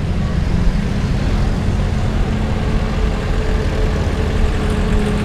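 Old Willys Jeep's engine running steadily as the jeep drives along, a dense low rumble with a steady engine note.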